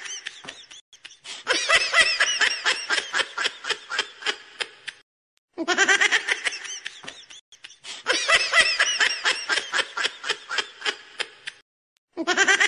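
A dubbed laughter sound effect: high-pitched laughter in quick rhythmic pulses. The same laugh clip loops back to back, with a brief silence before each repeat, about five and a half seconds in and again about twelve seconds in.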